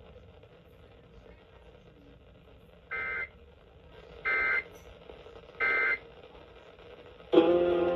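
EAS end-of-message signal: three short, buzzy bursts of SAME digital data tones, each warbling rapidly between two high pitches, about 1.3 seconds apart. Near the end, the station's music with guitar starts up.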